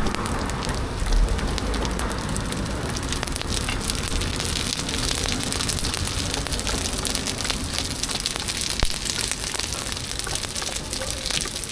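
Food frying in hot oil at a street food stall: a steady crackling sizzle.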